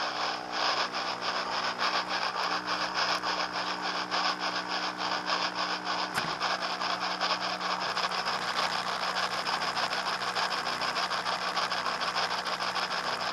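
SoundTraxx Tsunami sound decoder in an HO scale rotary snow plow playing a Shay steam locomotive's exhaust through its small speaker: fast, even chuffing over a steady low hum, with a single click about six seconds in.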